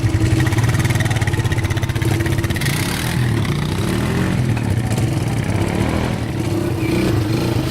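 ATV engine running as the quad is ridden, its note rising and falling a little with the throttle.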